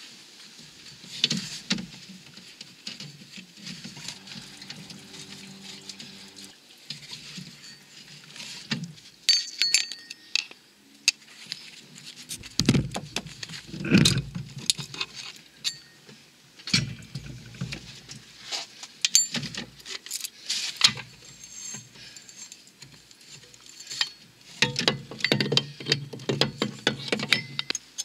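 Irregular metallic clinks, taps and scrapes of hands and parts at the timing end of a Renault 1.5 dCi diesel engine as the coolant pump is worked loose and taken out, with a few heavier knocks in the middle and a cluster of them near the end.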